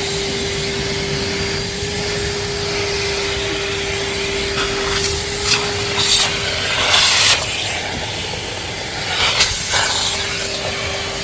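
Vacuum cleaner running steadily, its motor giving a constant hum over the rush of air, with a few brief louder rushes as the nozzle works the car's interior.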